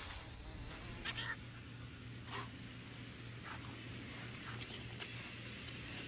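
Faint wild ambience: a steady high-pitched insect drone that sets in about half a second in, with a few brief chirps.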